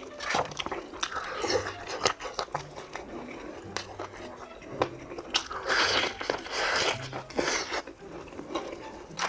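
Close-miked eating of crispy fried chicken: crunchy bites with crackling and chewing. The loudest, densest crunching comes past the middle.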